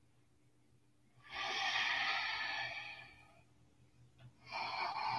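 A woman breathing audibly through the nose in a paced yoga breathing exercise: a long forceful exhale, then after a short pause a long inhale, each about a second and a half.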